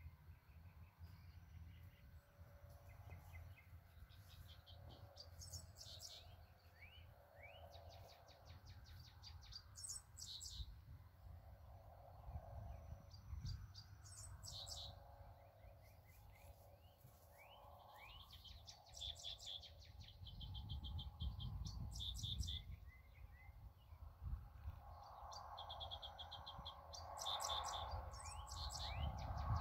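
Birds singing: short, high, fast trills and quick rising chirps repeat every few seconds, faint over a low rumble.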